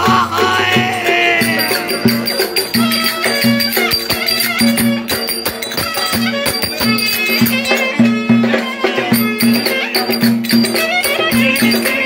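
Live Turkish folk band music: a reed wind instrument carries a wavering melody over a cümbüş, a banjo-like lute, and a steady, regular drum beat.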